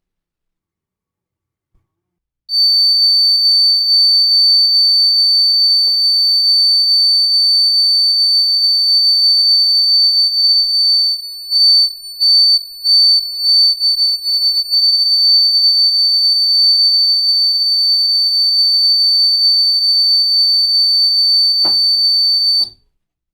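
Homemade fire alarm's buzzer sounding a steady, high-pitched tone. It starts suddenly, stutters briefly several times about halfway through, then runs on and cuts off shortly before the end.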